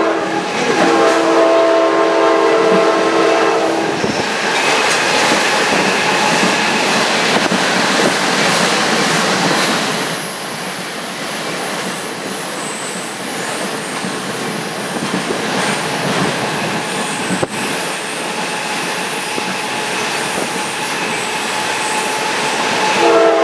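Panama Railroad train's horn sounding a held chord for about the first four seconds, then the steady rushing rumble of the moving train, a little quieter from about ten seconds in.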